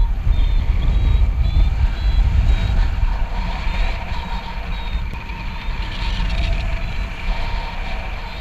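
Wind rushing and buffeting over the camera microphone of a paraglider in flight, with a variometer beeping in quick, short high pips.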